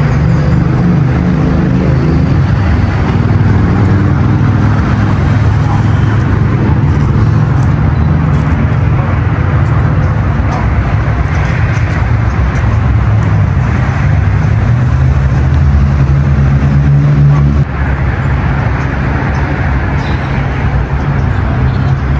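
Road traffic with a motor vehicle engine running, a steady low hum that drops suddenly several seconds before the end.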